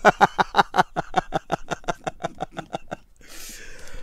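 A woman laughing hard in quick, even bursts, about six a second, tailing off after about three seconds, then drawing a breath.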